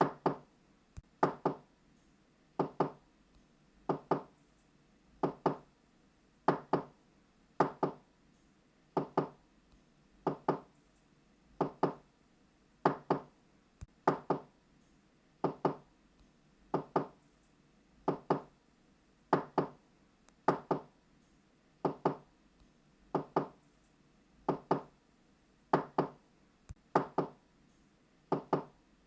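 Knocking on a door in quick pairs, knock-knock. The pairs repeat at an even pace, about one every second and a quarter.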